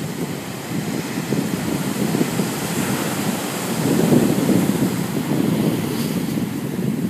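Ocean surf washing up the beach and breaking against rocks, with wind buffeting the microphone.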